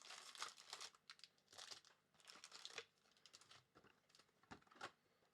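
Faint crinkling and tearing of plastic wrapping as a trading-card box or pack is opened by hand, in irregular clusters of sharp crackles.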